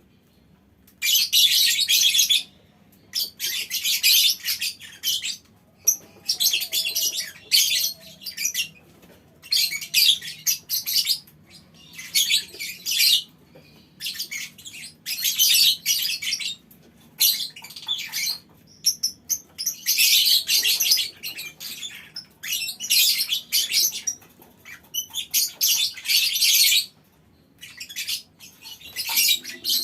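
A small colony of lovebirds chattering in shrill, rapid bursts of one to two seconds each, over and over with short pauses between.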